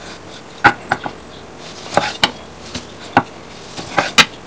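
Chef's knife cutting cherry tomatoes on a wooden cutting board. The blade strikes the board in about ten sharp, irregular knocks.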